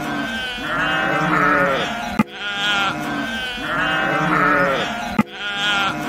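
Sheep bleating: a series of long, wavering bleats from a flock. A sharp click cuts in about two seconds in and again near the end.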